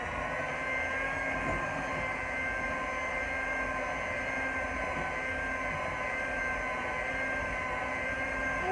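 Electric hand mixer running at a steady speed, its beaters whirring through wet cookie batter; an even motor whine that holds one pitch throughout.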